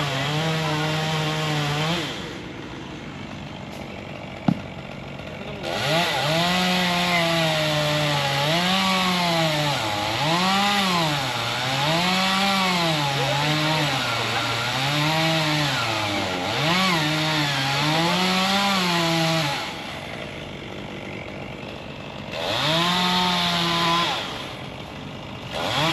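Two-stroke chainsaw cutting into a tree, its engine pitch swinging up and down about once a second as the saw loads in the wood. It drops back to a quieter idle twice, with a single sharp click during the first idle.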